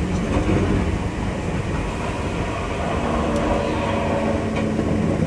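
Enoden electric train running along its track, heard from inside the front car: a steady rumble of wheels and undercarriage, with a faint steady whine joining about halfway through.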